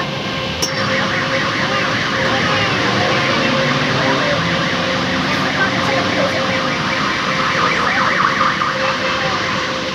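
An electronic alarm warbling rapidly and steadily, starting about a second in and stopping just before the end.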